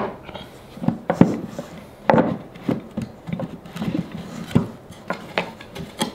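Wooden Forstner-bit insert being worked loose from its wooden drawer box by fingers hooked in its bit holes: irregular wooden knocks and rubbing as it shifts and catches, a little tricky to get out.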